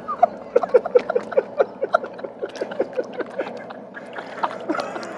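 Hot knife blade held deep in a quench, the liquid bubbling and gurgling in a quick run of short pops, about four or five a second, over a steady boiling hiss.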